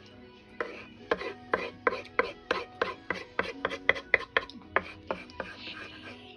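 Knife chopping through food onto a cutting board: a quick run of sharp strokes, about three a second, starting about half a second in and stopping shortly before the end.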